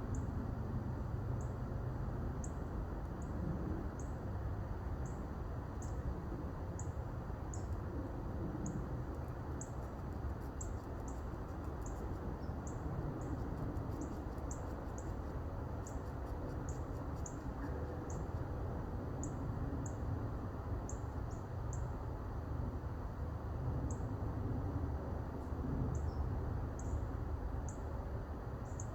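Short, high chirps from a small creature, repeating irregularly about once or twice a second, over a steady low rumble.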